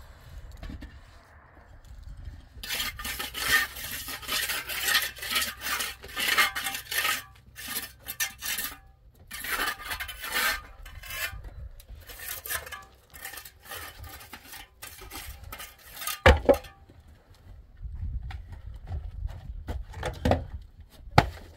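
Rapid, irregular scraping strokes for about ten seconds, then quieter rubbing broken by two sharp knocks, the second near the end.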